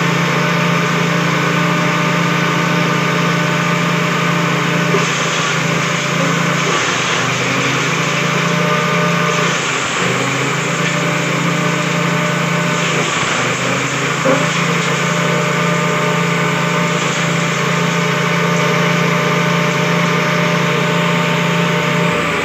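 Small petrol engine running a six-blade grass chopper at a steady speed, its note sagging briefly a few times as grass stalks are fed into the cutter.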